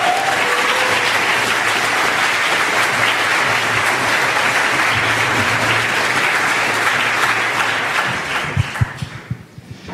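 Audience applauding steadily, dying away near the end with a couple of dull knocks.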